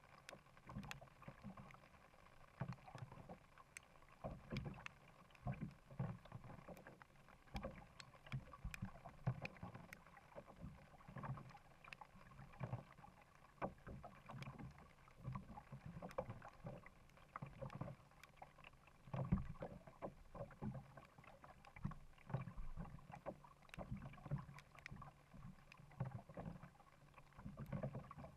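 Faint kayak paddling: the paddle blades dip and splash in lake water in a steady stroke rhythm, about one stroke a second, with small clicks and drips between strokes.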